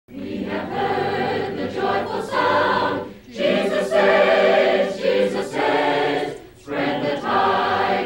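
Choir singing unaccompanied, in three phrases with short pauses between.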